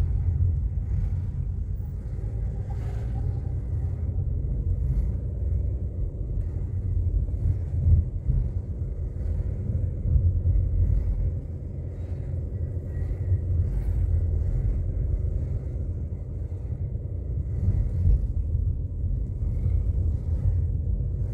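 Car being driven: a steady low rumble of engine and road noise, with a few brief louder bumps.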